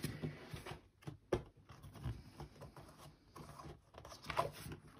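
Paper pages of a spiral-bound desk calendar being flipped and handled: soft rustling, with one sharp tap a little over a second in.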